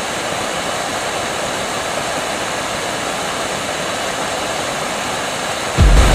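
Steady rushing hiss of a model rocket engine's exhaust, which turns suddenly louder and deeper near the end.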